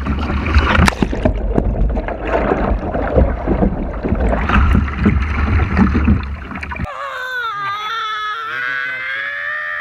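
Loud splashing and churning water, with a heavy rumble on the bow-mounted action camera's microphone, as a kayak capsizes and dunks the camera. About seven seconds in it cuts to a woman's long, high, wavering cry.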